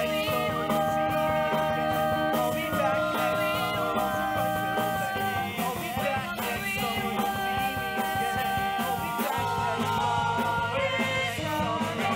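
Live rock musical-theatre number played by a pit band with drums, with the cast singing long held notes over it.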